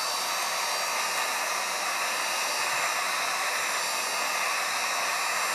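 Heat gun blowing hot air in a steady rushing hiss, aimed at the edge of a tablet's cracked glass to soften the adhesive beneath it.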